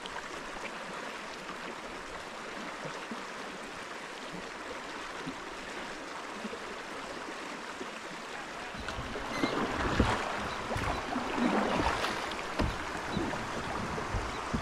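River water running steadily. About nine seconds in it grows louder, with irregular splashes and knocks.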